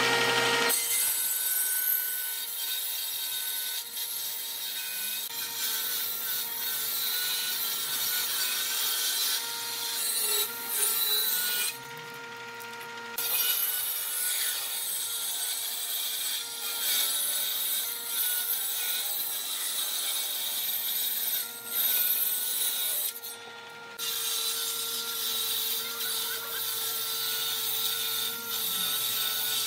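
Table saw on a combination woodworking machine ripping a wooden board lengthwise: a steady whine from the spinning blade under the rasping hiss of the cut. Twice the cutting noise stops for a second or so while the blade keeps spinning, once about 12 seconds in and again about 23 seconds in.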